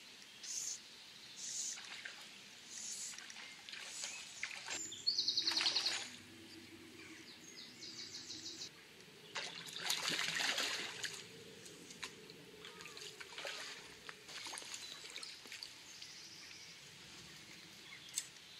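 A hooked trout splashing and thrashing at the surface of the river as it is played on a fly rod, loudest about ten seconds in. Birds call throughout, and a short burst of rapid ticking comes about five seconds in.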